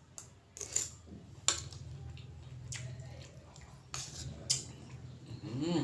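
Metal spoon clicking and scraping against a ceramic bowl during eating, with soft wet mouth sounds, over a steady low hum.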